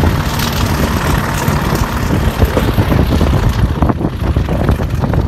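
Class 40 diesel locomotive's English Electric 16-cylinder turbocharged engine working hard under load as it pulls the train away, heard from a carriage window behind it as a loud, steady drone.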